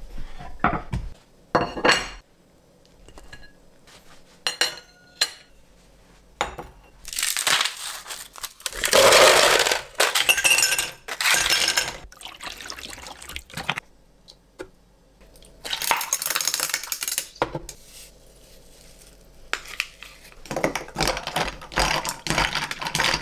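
Ice cubes rattling in a plastic ice bin and clinking into a glass in several stretches of clatter, after a few light knocks. Near the end, ice clinks against the glass as a drink is stirred with a wooden stirrer.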